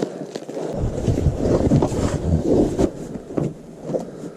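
Strong wind gusting across the microphone in uneven rumbling buffets, with scattered light knocks and rustling.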